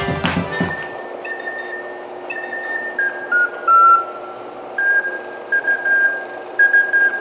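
Lively band music with accordion and percussion cuts off about a second in. A solo flute then plays a slow melody of long held notes, stepping down and then back up.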